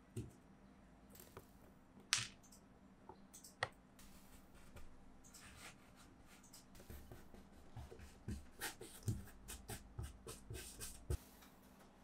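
A hand patting, pressing and crumbling kinetic sand on a tabletop: soft pats and rustles with a few sharp taps, coming thicker and faster in the second half.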